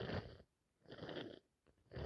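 A person with a head cold sniffing or breathing noisily through a congested nose, twice, with a third starting near the end.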